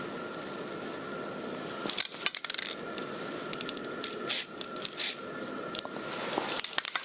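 Two short hisses of an aerosol spray-paint can, about four and five seconds in, with clusters of small clicks and rattles of the can and rifle being handled around them.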